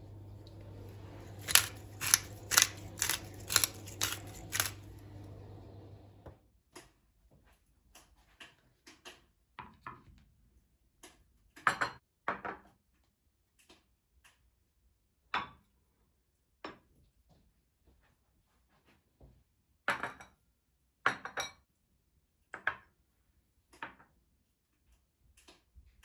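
Ceramic plates and bowls being set down on a marble tabletop: scattered clinks and knocks, a few louder ones about twelve and twenty seconds in. Before that, over a steady low hum that stops about six seconds in, seven even sharp taps come about twice a second.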